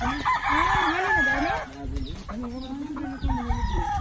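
Chickens clucking, loudest in a flurry during the first second and a half, and a rooster crowing in a long call in the second half.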